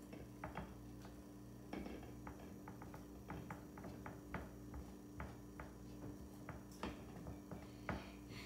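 Spatula scraping and tapping against a glass mixing bowl as thick batter is scraped out into a glass loaf pan: soft, irregular clicks and taps, a few a second.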